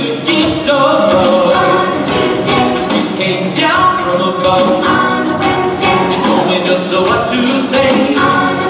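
Music with a group of voices singing.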